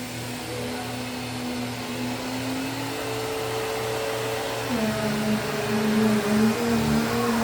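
Dust Care Evolution Prestige 6502Z upright vacuum cleaner running steadily, its motor hum dropping a little in pitch about two-thirds of the way through.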